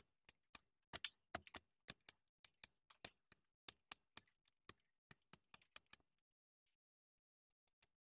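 Carving knife slicing chips off a wooden block in quick short cuts: a run of sharp, crisp snicks, about three or four a second, that stops about six seconds in.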